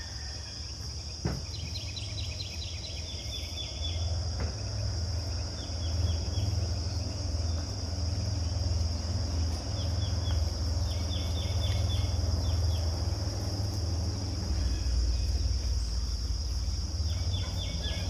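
Outdoor summer insect drone, a steady high buzz, with a few short bursts of rapid bird chirping and a low rumble underneath that grows stronger after the first few seconds.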